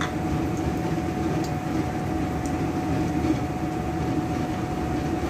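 Breaded chicken kebabs shallow-frying in hot oil over a medium flame: a steady sizzle with a low rumbling hum and a faint steady tone underneath, and a few faint pops.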